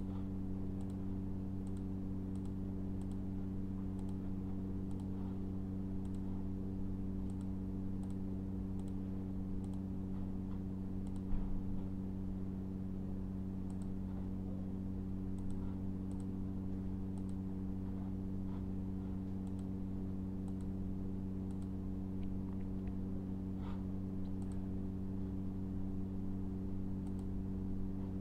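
A steady low hum, with faint computer mouse clicks now and then and one sharper click about eleven seconds in.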